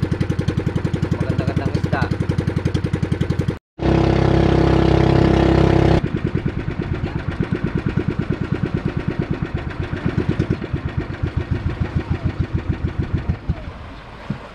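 Motorised outrigger boat's engine running with a fast, even putter, with a brief dropout a few seconds in. The beat slows near the end and the engine cuts off about a second before the end as the boat comes in to the beach.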